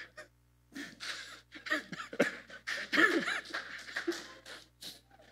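A man laughing breathily in short, uneven bursts, starting about a second in.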